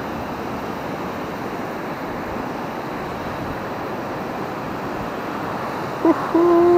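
Steady rushing noise of wind and surf. About six seconds in, a metal detector gives a loud, level electronic target tone with overtones, which holds on.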